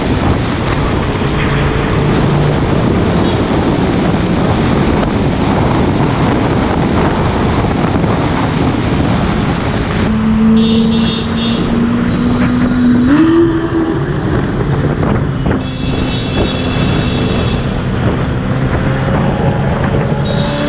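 Heavy wind buffeting on the microphone of a camera riding in traffic, over road and engine noise. About halfway through the wind eases and a steady engine note comes through, rising in pitch a few seconds later. Two short high-pitched tones sound in the second half.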